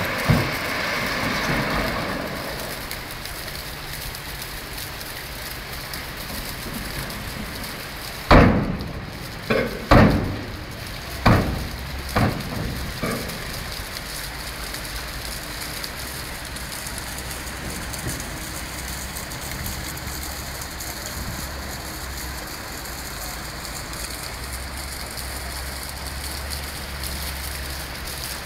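Shallow river water rushing steadily over stones. About eight seconds in comes a run of six heavy knocks spread over some five seconds, and after that a low drone sits beneath the water.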